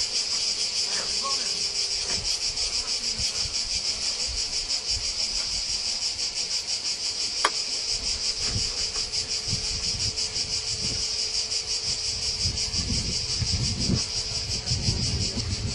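A chorus of cicadas chirring steadily in a dense, shrill buzz, with gusts of wind buffeting the microphone, stronger in the second half.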